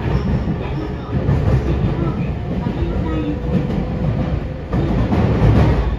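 Running noise of a Nagoya Municipal Subway N3000-series electric train heard inside the passenger car: a steady, loud rumble of the train in motion, growing louder about five seconds in.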